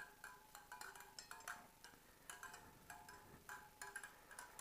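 Wire spokes of a Triumph Tiger 800XC front wheel struck one after another with a spanner, each tap a short metallic ping, about three a second. It is a spoke check: sound spokes all ring the same, and a loose or snapped one sounds different.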